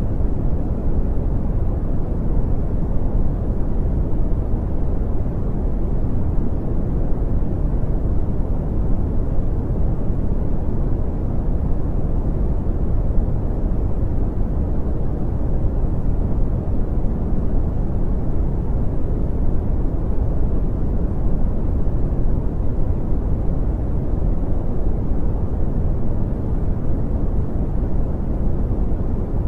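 Brown noise: a steady, deep rushing hiss, strongest in the low bass and fading off toward the treble, with no changes or events.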